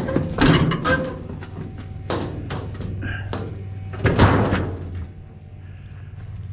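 Knocks and thumps of a heavy sheet-metal appliance cabinet being wrestled and moved by hand, with two sharp knocks about two and four seconds in, the second the loudest.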